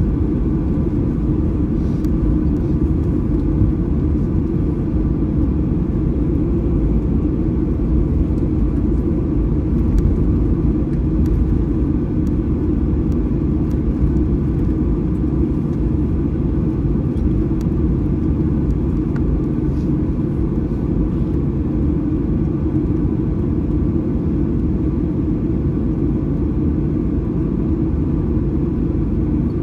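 Cabin noise inside a Boeing 737-800 taxiing after landing: a steady low rumble from its CFM56-7B engines at taxi power and the airframe rolling, heard from a window seat over the wing, with a faint steady whine above it.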